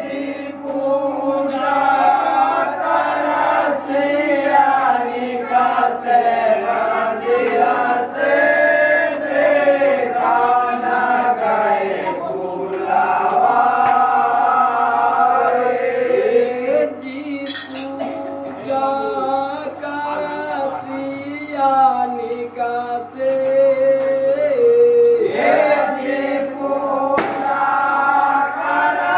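A group of men singing a traditional Holi folk song together, accompanied by a dholak drum.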